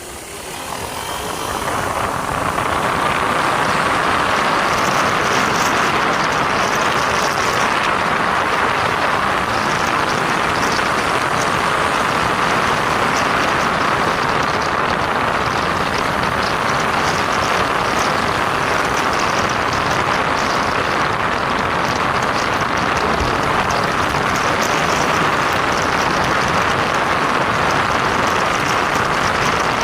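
Honda ADV 160 scooter under way on a test ride: steady riding noise, engine and rushing air together, building over the first two seconds as it gets up to speed and then holding even.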